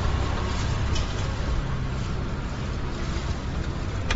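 Steady city street noise with a low traffic rumble, and a short sharp click near the end.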